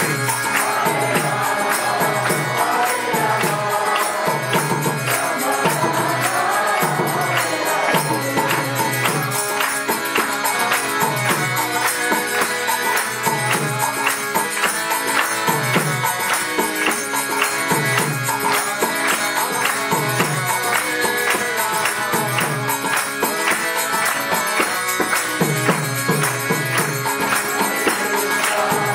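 Devotional bhajan chanting: a man's voice leads a mantra over a drum and hand percussion keeping a steady, even beat.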